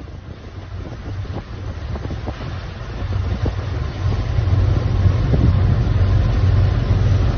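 A low rumble with wind buffeting the microphone, growing steadily louder, with a few faint clicks.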